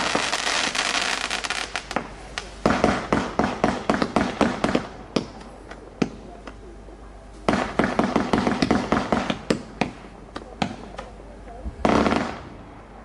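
Blackboxx 'Elysis' 54-shot firework battery firing: rapid volleys of launch pops and crackling stars, in several spells with quieter gaps between them, and a short loud volley near the end.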